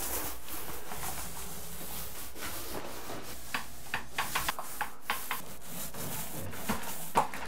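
Paint roller loaded with primer rolling over drywall: a steady rubbing hiss, with a few short clicks in the middle and one sharper click near the end.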